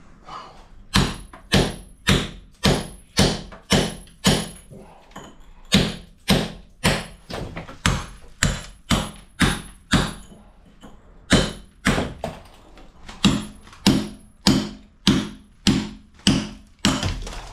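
A hammer striking a steel chisel against brick and mortar, chipping away broken brickwork at a wall corner. About two sharp strikes a second, each with a brief metallic ring, with short pauses twice.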